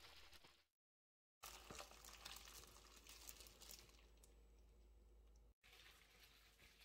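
Faint wet squishing and crinkling as hands in plastic gloves toss cubed radish in thick chili-pepper seasoning, with small clicks and crackles; the sound drops out completely for a moment about a second in.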